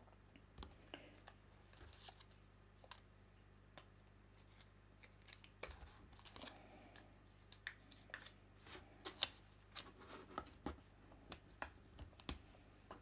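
Faint paper handling: soft rustles and scattered light ticks and taps as small die-cut paper petals are picked up, shaped with a stylus tool and laid down on a craft mat.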